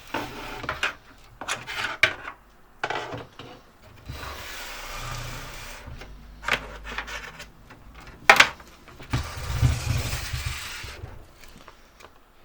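Hands and cables rubbing and rustling inside a computer case, with several sharp clicks and knocks of parts being handled; the loudest knock comes about eight seconds in.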